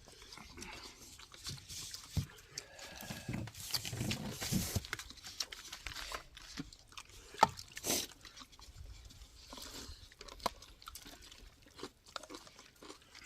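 People eating bowls of soup and rice: chewing, with scattered short clicks and knocks, the sharpest about seven seconds in.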